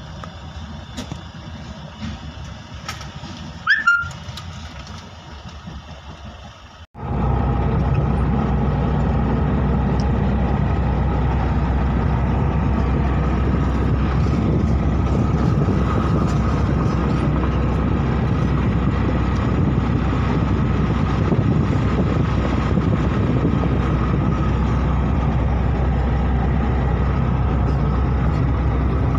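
Street traffic noise beside parked trucks, with one short, sharp, loud sound about four seconds in. After a sudden cut about seven seconds in comes steady engine and road noise heard inside a moving van's cabin at highway speed, with a faint steady whine.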